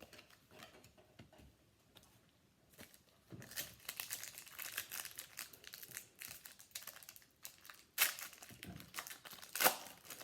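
A trading card pack wrapper being crinkled and torn open by hand: a few faint handling clicks, then a few seconds of dense crackling with two sharp, louder snaps near the end.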